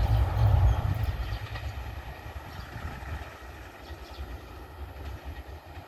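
Express train's low rumble fading as it moves away down the line: loud for about the first second, then dying down to a faint, steady rumble.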